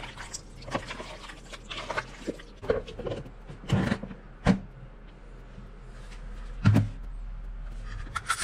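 Wet squishing and clicking of hands mixing raw chicken wings in marinade in a plastic bowl, followed by several sharp plastic knocks as a plastic lid is pressed on. The loudest knock comes near the end.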